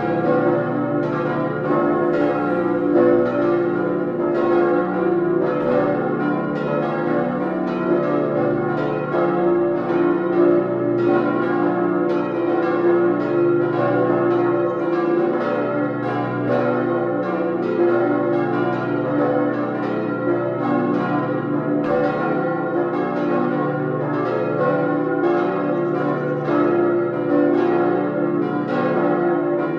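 Full peal of cast-steel church bells swinging and ringing together, their strikes overlapping several times a second over a continuous, sustained ring.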